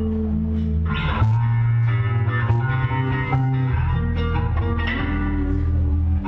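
Electric bass guitar with a Kahler tremolo bridge playing long, ringing notes and chords.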